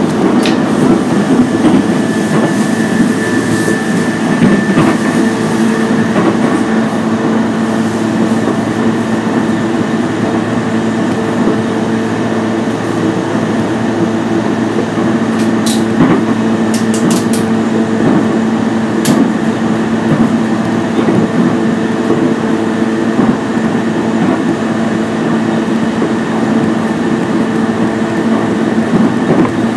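Running noise heard inside a JR East E233-0 series electric multiple unit at a steady pace: a continuous rumble of wheels on rail with a steady hum under it. A few sharp clicks come about halfway through.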